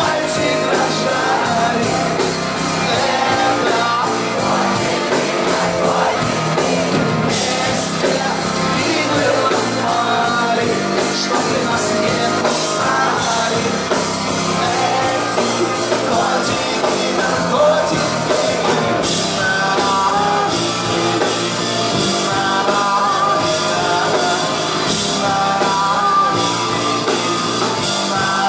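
Live rock band playing: a singer's voice over electric guitars, bass guitar and drum kit.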